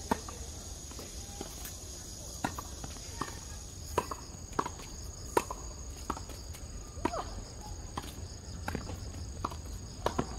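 Tennis doubles rally on a hard court: a serve strike right at the start, the loudest pop, then a string of sharp racquet hits and ball bounces about once a second. A steady high insect drone runs underneath.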